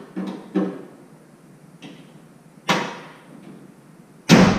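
Pickup truck hood being closed: a few light metallic clicks as the prop rod is unhooked and stowed, a sharper knock about halfway through, then the hood slammed shut near the end, the loudest sound, with a short ringing tail.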